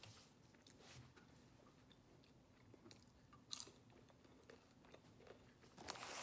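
Faint crunching and chewing of potato chips, with a louder crunch about three and a half seconds in. The foil chip bag rustles near the end as a hand reaches into it.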